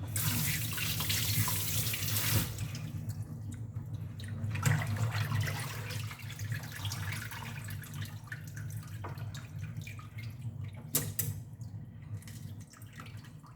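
Kitchen tap running into a sink while raw chicken is rinsed. The water is strongest for the first two and a half seconds, then turns to lighter, uneven splashing, with a sharp knock about eleven seconds in.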